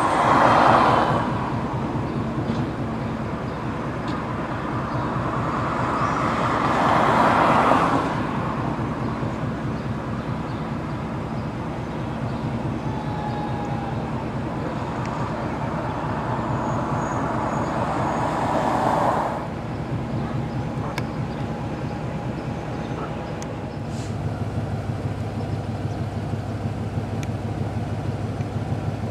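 Fire engine's diesel engine idling steadily, with street traffic passing by three times: about a second in, around seven seconds and around eighteen seconds.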